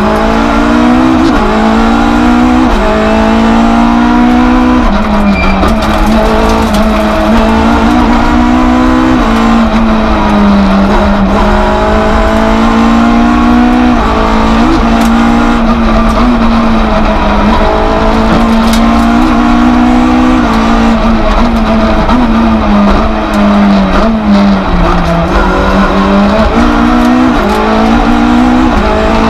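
Citroën Saxo F2000/13 rally car's four-cylinder engine driven hard at full race pace, heard from inside the cabin. The engine note climbs steeply through each gear and drops sharply at every upshift, easing off and coming back on for corners a few times.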